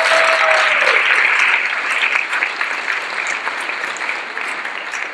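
An audience of a few hundred applauding. A single held cheer rises above it for about the first second, and the clapping slowly thins out.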